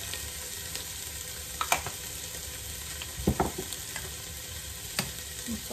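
Chopped onions sizzling steadily in oil in a stockpot, cooking down until softened. A few short clicks and one brief knock about three seconds in.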